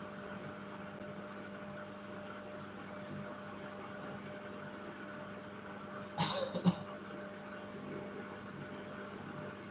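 Washing machine running with a steady hum as it goes into its spin cycle. A brief sharp double noise cuts in about six seconds in.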